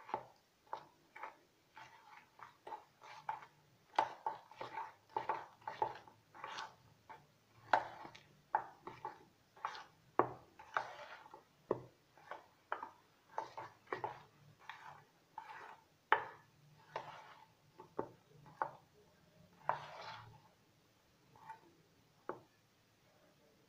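A spoon scraping and clinking against a stainless steel bowl while stirring milk into crushed chocolate biscuit powder to mix a thick cake batter. The clinks and scrapes repeat at about two a second and stop near the end.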